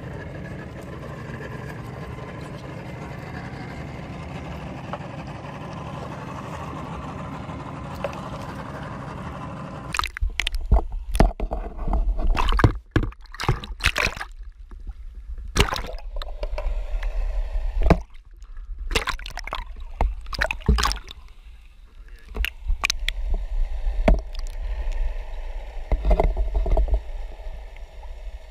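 Water sloshing and gurgling around a GoPro camera held in the sea. A steady muffled rumble gives way, about ten seconds in, to irregular sloshing surges and sharp knocks against the camera housing.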